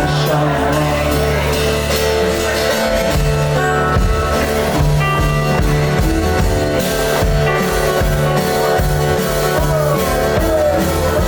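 A rock band playing a song with guitar, bass and drums, at a steady beat.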